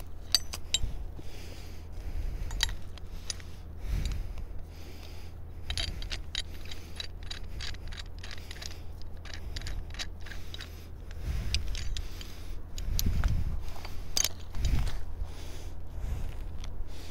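Steel bow shackles and wire rope clinking and scraping together as they are handled in gloved hands, with irregular sharp metallic clicks over a low rumble.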